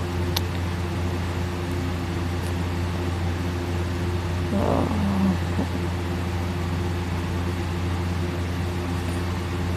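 A steady low mechanical hum, holding several steady tones at an even level. About five seconds in comes a brief sound that falls in pitch.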